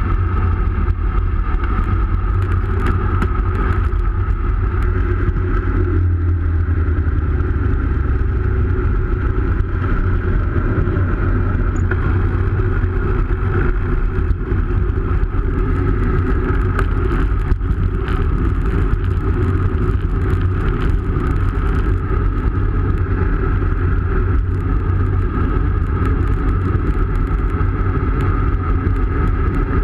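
Wind buffeting a bike-mounted action camera's microphone together with the road bike's tyres rolling on tarmac at speed: a steady low rumble with a constant hiss and hum above it.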